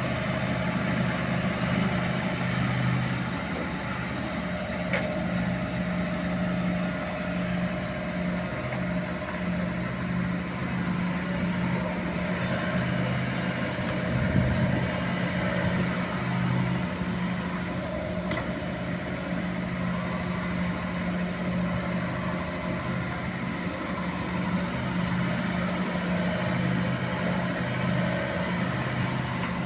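TZCO TZ60 excavator's diesel engine running steadily, with a higher whine that comes and goes over the engine note.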